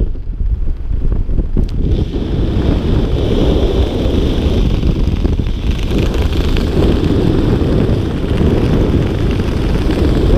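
Wind rushing over a helmet-mounted camera's microphone during a parachute descent under an open canopy, a steady, loud low rumble.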